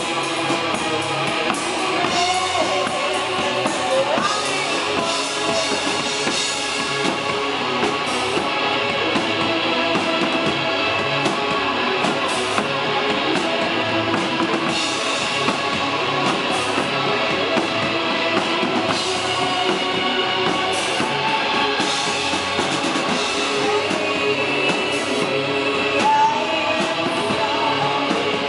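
Live gothic rock band playing: electric guitars, a drum kit and Japanese taiko drums, with a woman singing.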